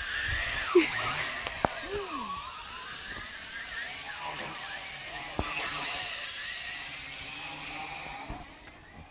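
WLtoys V353 Galaxy toy quadcopter in flight, its small electric motors whining with the pitch sliding up and down as the throttle changes; the whine fades out near the end.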